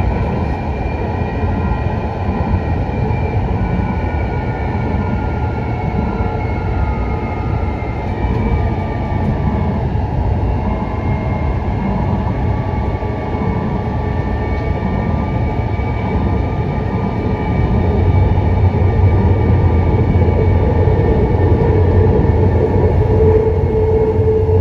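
Taipei Metro EMU101 metro train running on elevated track, a steady rolling rumble with several whining tones that glide down over the first ten seconds and then hold steady. The rumble gets louder in the last several seconds as the train takes a curve, with a stronger steady tone coming in near the end.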